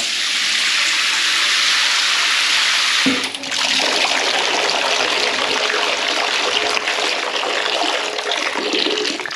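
Water spraying steadily from the hand-held shower head of a newly fitted Bayswater bath shower mixer, diverted from the spout to the shower. The flow is briefly interrupted by a knock about three seconds in.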